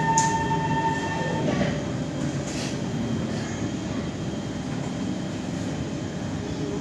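Kawasaki C151 metro train running, a steady rumble with a high motor whine that cuts off about one and a half seconds in, and a couple of sharp clicks from the wheels on the rails.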